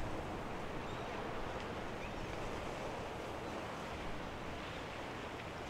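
Steady rushing wash of water from a passing oil/chemical tanker, with a low rumble underneath.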